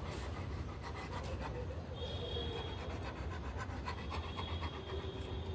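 A dog panting steadily over a low, steady background rumble.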